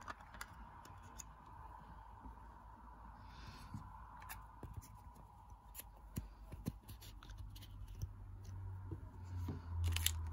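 Faint, scattered clicks and scratches of small plastic parts being handled as a wrist light band is taken apart, over a faint steady hum.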